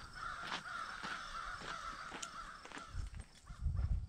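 Birds cawing, the calls repeated about every half second.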